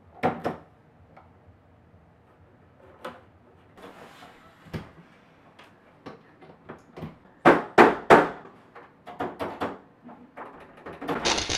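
Scattered knocks and clicks of hands and plastic keys on a Yamaha electronic keyboard that has broken down and plays no notes, loudest in a cluster of thumps about halfway through. Near the end a steady hiss starts.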